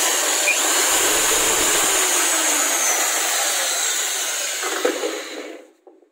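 Electric drill with a large twist bit boring a hole through a painted board, the motor running steadily at speed, then winding down and stopping near the end.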